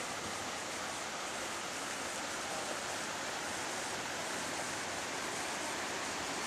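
Steady rush of a fast-flowing river running over rapids, an even hiss of water.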